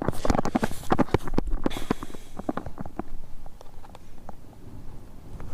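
A plastic packet being handled and crinkled for about two seconds, followed by a run of light clicks and taps.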